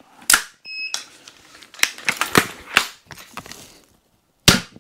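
Steambow AR-6 Stinger II pistol crossbow with its 90 lb limb being handled and readied, with clicks and rattling, then one loud, sharp shot near the end as the bolt is loosed. A short electronic beep sounds about a second in.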